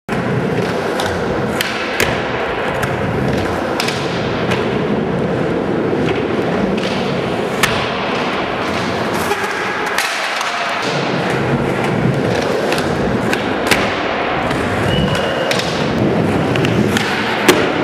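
Skateboard wheels rolling on concrete ramps, with sharp clacks of the board popping and landing scattered throughout; the loudest clack comes near the end.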